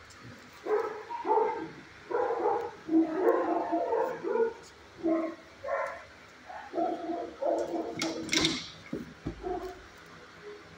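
A dog barking in a run of short calls for about eight seconds, then stopping. A sharp knock sounds near the end of the barking.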